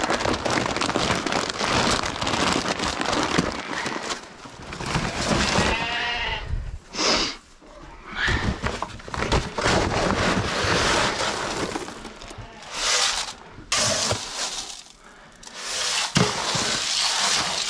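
Dry grain feed pouring and being scooped into galvanized metal feed cans, a rushing hiss that comes and goes. Sheep bleat several times in the background, about six seconds in and again near the end.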